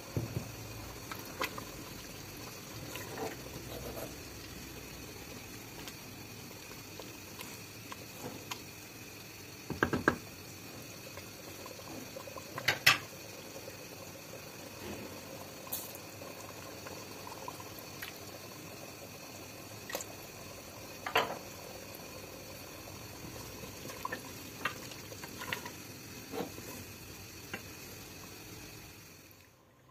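Stew broth boiling in a metal pot on a gas stove: a steady bubbling hiss with scattered sharp clicks and pops.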